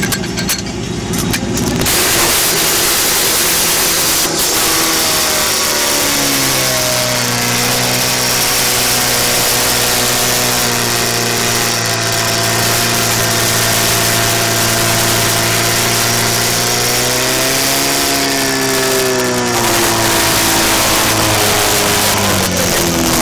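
Portable fire pump's engine running hard under load, a loud steady drone. Its pitch climbs about six seconds in, holds, swings up and back down near the end, then settles a little lower.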